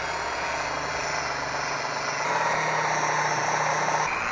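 Electric power buffer running a foam pad with cutting compound over car paint: a steady motor whine that gets a little louder about two seconds in.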